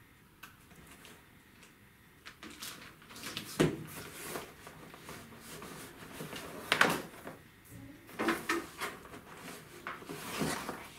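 Handling noise from unpacking a laptop's cardboard shipping box: plastic wrapping rustling and cardboard scraping and knocking as hands rummage inside the box. It comes as irregular rustles with several sharper thumps, the loudest about three and a half seconds in and near seven seconds.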